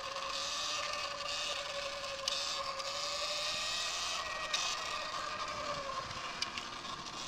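Sur-Ron X electric dirt bike's motor whining steadily under way, over a hiss of tyres and wind; the whine fades out about six seconds in.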